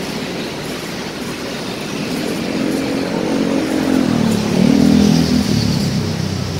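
City street traffic, with motorcycles and cars passing steadily. One car passes close by: its engine grows louder from about two seconds in, is loudest around four to five seconds, and drops in pitch as it goes past.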